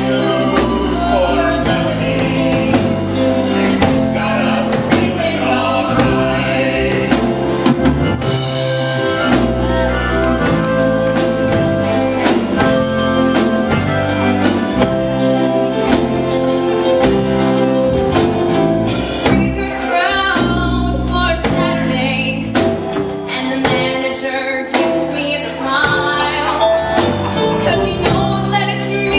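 A man and a woman singing a duet with a live band of drum kit, bass guitar, keyboard and acoustic guitar.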